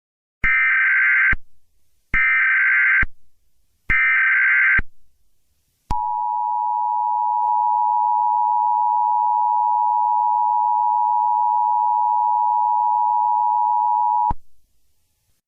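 Emergency Alert System tones: three short bursts of buzzing digital SAME header data, then the two-tone attention signal held steady for about eight seconds before cutting off. Together they mark the start of a new alert broadcast.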